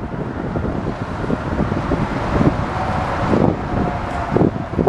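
A steady engine rumble mixed with wind buffeting the microphone, with a faint thin whine joining in about halfway through.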